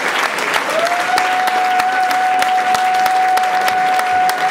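A crowd clapping, a dense run of many separate hand claps. From about a second in, a single steady high tone is held over it.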